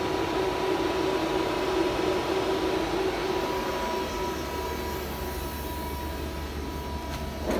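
Takamaz X-10 CNC lathe running: a steady machinery hum and hiss with a thin, even whine. A mid-pitched drone fades out about halfway through while a low hum grows stronger.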